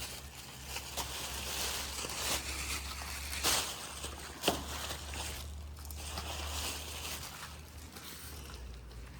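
Horses eating: crunching and shuffling noise, with two sharp knocks about three and a half and four and a half seconds in.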